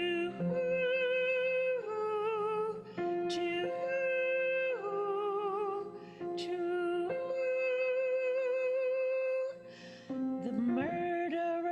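A woman singing solo in long, held notes with vibrato over a soft accompaniment, taking short breaths between phrases.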